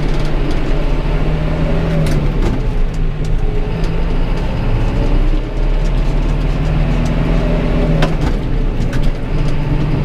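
John Deere 6420 tractor's four-cylinder diesel engine running steadily on the road, heard inside the cab. The engine note dips twice, and a few sharp rattles sound over it.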